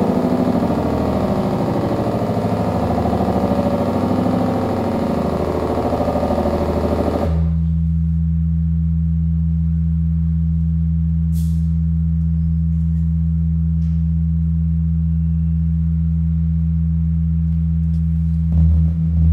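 Electronic bio-noise from a yeast-culture sonification demo played over speakers. A dense, busy noise cuts off suddenly about seven seconds in and gives way to a steady low drone of pure tones, which starts to pulse near the end.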